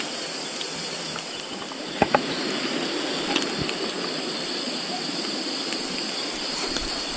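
Steady rushing background of a riverside at night with a steady high-pitched trill over it, while a wood campfire grilling skewered fish gives scattered faint crackles. Two sharp clicks come close together about two seconds in.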